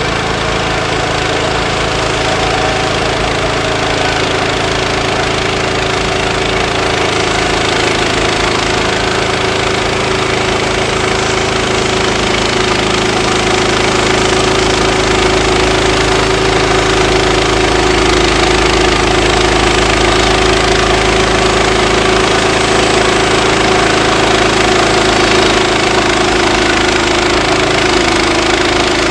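Woodland Mills HM126 portable bandsaw mill at work: its gasoline engine runs steadily while the band blade cuts a slab from a log as the saw head is pushed along. It grows a little louder about halfway through.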